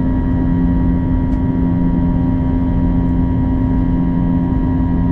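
Airbus A321-211's CFM56 jet engines heard from inside the cabin in the climb just after takeoff: a loud, steady hum made of a low tone with several higher steady tones over a constant rush of air.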